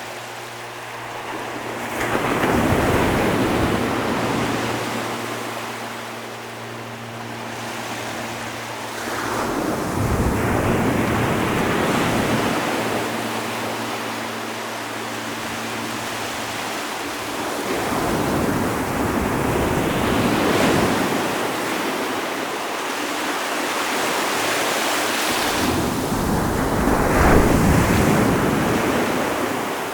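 Ocean waves breaking and washing on the shore, swelling in four surges roughly eight seconds apart. A faint low steady hum runs underneath and stops about halfway through.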